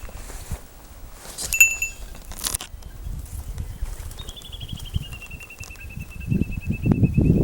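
Wild birdsong: a short clear whistled note about a second and a half in, then from about four seconds in a long, rapid string of notes that slides slightly down in pitch. A low, uneven rumble runs underneath and grows louder near the end.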